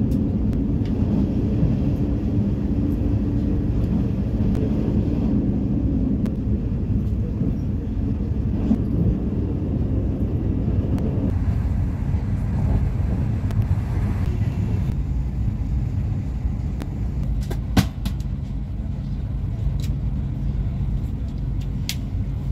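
Passenger train running along the track, heard from inside the carriage: a steady low rumble and hum from the wheels and running gear, with a few sharp clicks, the loudest about two-thirds of the way through.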